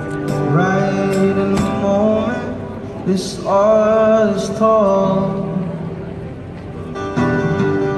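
A male busker singing and strumming an acoustic guitar, with one long, wavering held note about halfway through.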